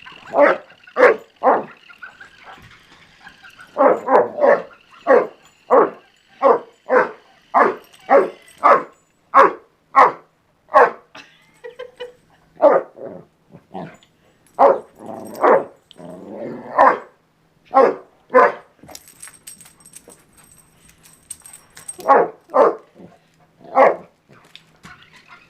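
Springer spaniel puppy barking over and over at about two barks a second, with a couple of short pauses. A faint steady high whine runs under the first part.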